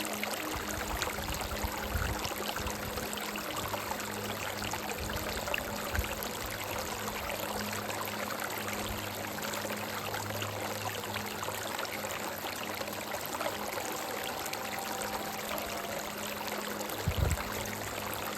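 Stream running over rocks: a steady rush and babble of flowing water, with faint soft held music notes underneath. A brief low thump near the end.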